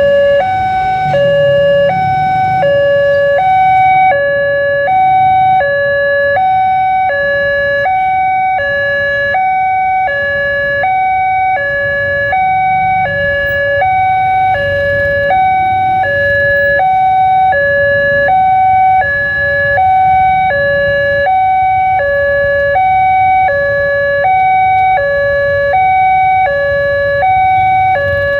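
Railway level-crossing warning alarm sounding an electronic two-tone chime, a lower and a higher note alternating steadily about once a second: the signal that a train is approaching and the barrier is down. A low rumble of idling road vehicles lies underneath.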